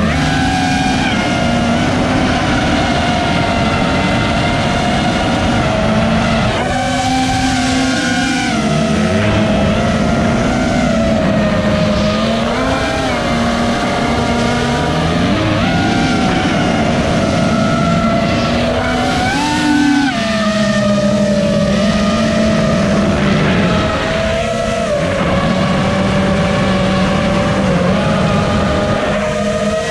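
Racing quadcopter's Cobra 2205 2500 kV brushless motors and propellers whining steadily, the pitch dipping and rising several times with the throttle.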